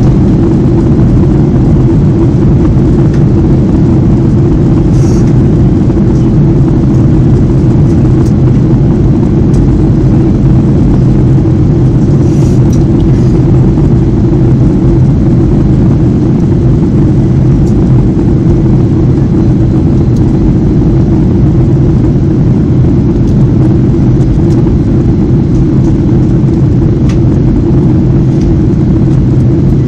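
Steady, loud cabin noise inside a Boeing 737-800 in descent: the drone of its CFM56 engines and the rush of air along the fuselage, heard from a window seat over the wing, with a low hum that does not change.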